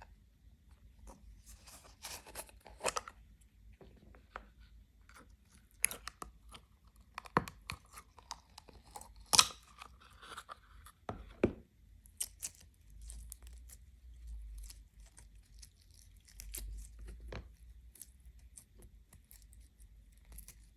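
Clear slime being handled and pulled apart: irregular sticky crackles, tearing sounds and clicks, with a few sharper snaps.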